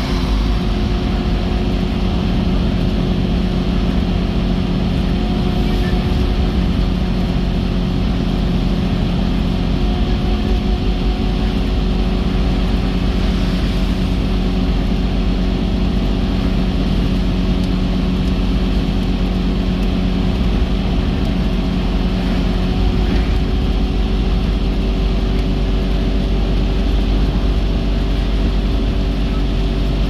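Car driving at a steady cruise, heard from inside the cabin: a steady engine drone with tyre and road noise.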